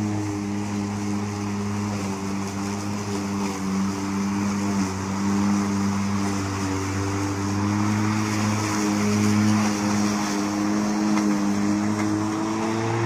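Greenworks 20-inch 12-amp corded electric lawn mower cutting grass: a steady motor-and-blade hum over a hiss of cut grass. The pitch sags slightly as it starts and rises a little near the end.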